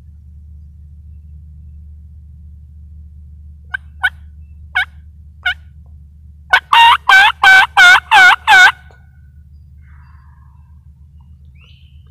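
Hen turkey yelping: four soft single notes spaced apart, then a loud, fast run of about seven yelps that stops suddenly.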